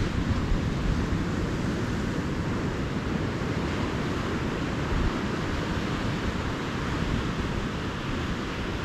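Calm ocean surf washing steadily on a beach, with wind buffeting the microphone in low rumbles.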